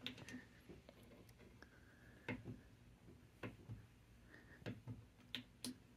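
Faint clicks from the rotary knob and button of a Truma heater control panel being pressed and turned, a handful of separate clicks spread over several seconds.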